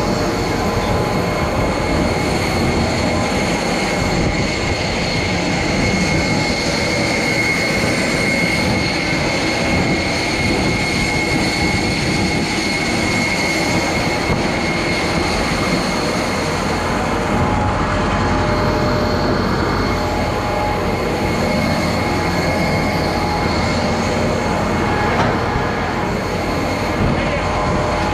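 Steady, loud running noise of an airliner being refueled from a fuel truck: the truck's pumping engine and the jet's auxiliary power unit drone on together, with a steady high whine over the top.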